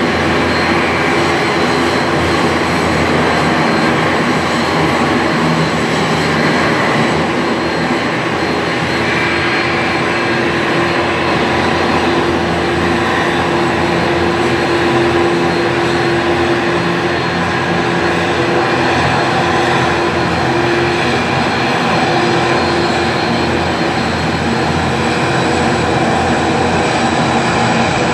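ATR 72-600 turboprop engine running steadily during pushback: a continuous high whine over a broad rumble.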